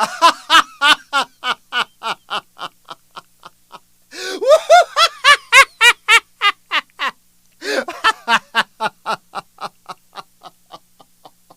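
A person laughing hard in three bouts of rapid 'ha-ha-ha', about four to five laughs a second, each bout starting loud and trailing off, the second about 4 seconds in and the third about 8 seconds in.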